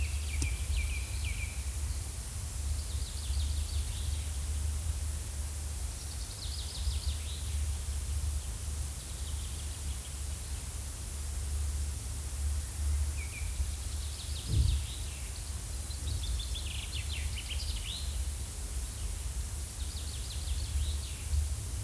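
Forest ambience: small birds chirping and trilling in short phrases every few seconds over a steady low rumble and a faint hiss, with one soft thump about two-thirds of the way through.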